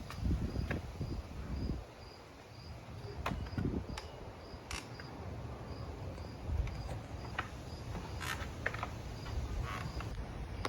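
An insect, such as a cricket, chirping steadily: a short high note repeated about twice a second. Low rumbles and a few sharp clicks sound beneath it.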